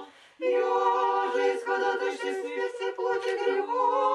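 Orthodox church choir singing a cappella: several voices hold sustained notes in harmony, coming in after a short pause right at the start.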